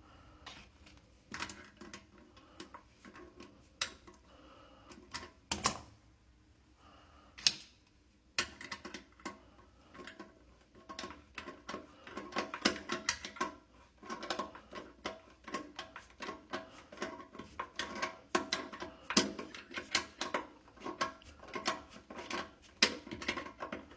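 Rapid metallic clicking of a ratchet wrench tightening the nuts on a toilet's floor bolts, scattered at first and then in quick, dense runs from about eight seconds in.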